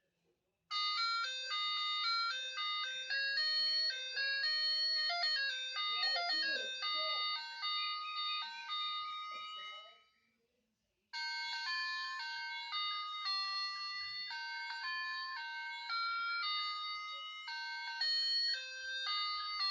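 Sound chip of a battery-operated 1990 toy bike playing electronic beeping tunes through its small speaker. One tune stops about ten seconds in, and after a second's pause another begins.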